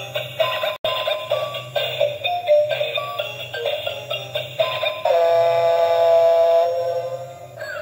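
Battery-operated light-up toy shark playing its built-in electronic melody: simple beeping notes stepping up and down, with one long held note past the middle, over a low pulsing hum from its drive motor.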